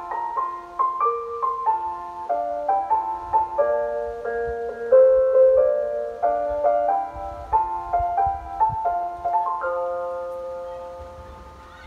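An electronic chime melody of single keyboard-like notes, the kind played over a station platform's speakers as a train approaches. It fades out near the end over a faint low rumble.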